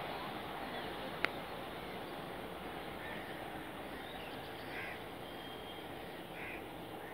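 Crows cawing twice in the second half, over steady background noise, with one sharp click about a second in.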